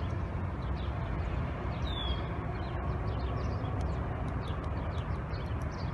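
Woodpecker pecking at a tree in irregular light taps, with small birds chirping and one clear falling call about two seconds in, over a steady low rumble of wind on the microphone.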